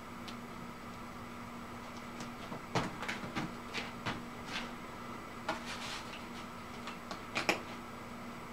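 Cardboard pieces being handled and set down on a table: a run of short knocks, taps and rustles from about three seconds in to near the end, over a steady background hum.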